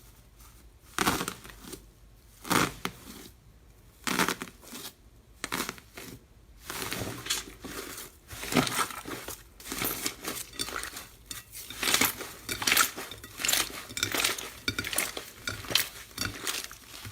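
Hands squeezing and pressing slime: irregular crackling squishes and pops, a few separate ones at first, then coming close together from about a third of the way in.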